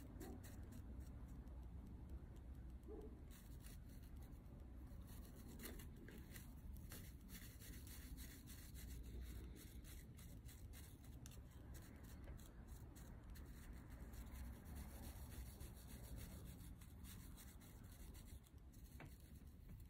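Faint rubbing and scratching of a paintbrush working paint, mixing a pink shade, with many light ticks throughout.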